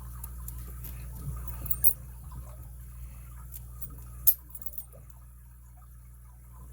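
Small clicks and taps of a brass padlock being handled and turned over in the hand, with one sharper click a little past four seconds, over a steady low hum.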